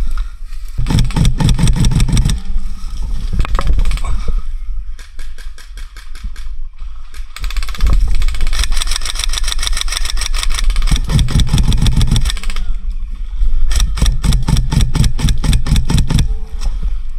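Airsoft electric guns firing on full auto: several bursts of rapid, evenly spaced shots, the longest lasting about four seconds, over a steady low rumble.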